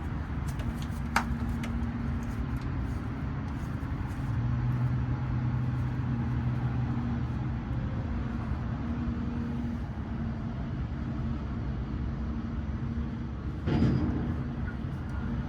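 A motor running steadily with a low hum, with a few faint clicks early on and a short louder burst near the end.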